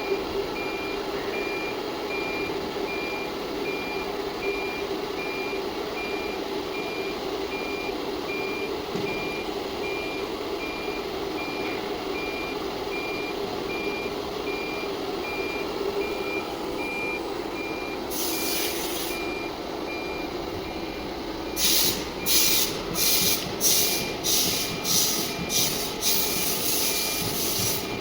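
ATC CNC router running its automatic tool-length calibration cycle: a steady machine hum under a continuous, evenly pulsed high beep. About 18 s in there is a one-second hiss of compressed air. From about 22 s there is a rapid run of short pneumatic air blasts from the automatic tool changer releasing and clamping tools.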